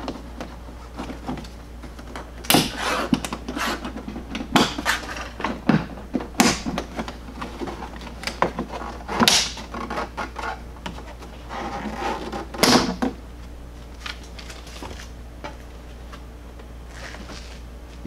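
Plastic push-in clips snapping loose as the inner trim panel of a Jeep Wrangler JL's rear swing gate is pulled off, with the panel clattering against the gate. There is an uneven run of sharp cracks over the first two-thirds, then only quieter handling.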